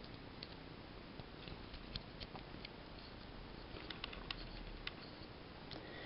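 Faint, scattered small clicks and scratches of fingers working the metal key ring out of the end of a red Victorinox Swiss Army knife.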